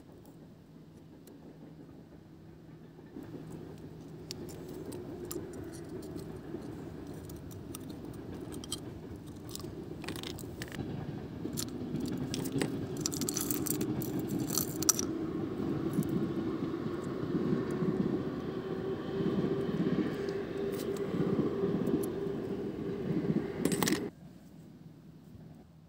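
Small metal survival-kit tools clinking and jingling as they are handled and set down, over a steady engine hum that grows louder and slowly rises in pitch. Both stop abruptly near the end.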